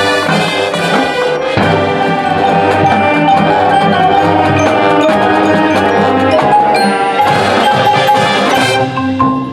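Marching band playing: brass and saxophones over a drumline and mallet percussion, loud and full, thinning out near the end.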